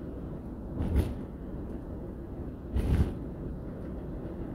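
A vehicle cruising on a highway: steady low road and engine rumble inside the cab. Two brief louder bursts of noise stand out, about a second in and about three seconds in.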